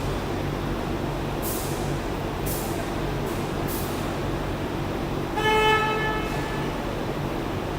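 Machinery running with a steady low hum, broken by short hisses. About five and a half seconds in comes a brief high-pitched squeal or tone lasting under a second.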